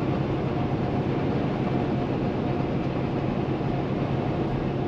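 Steady drone inside the cab of a 2016 Kenworth T680 semi truck cruising on the highway: its PACCAR MX-13 diesel engine humming evenly under road and wind noise.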